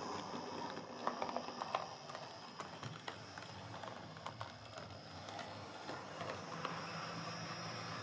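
Hornby Class 3F Jinty OO gauge model locomotive running along the layout track: a steady motor hum with scattered clicks of wheels over the rails, several of them together about a second in.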